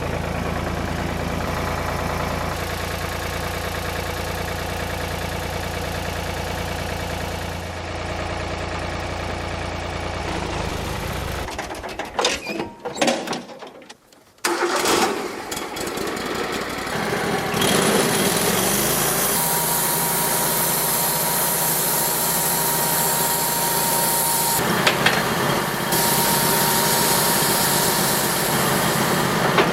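Portable band sawmill's engine running steadily. About halfway through it breaks off almost to nothing, then comes back louder and runs on with a thin steady whine over it.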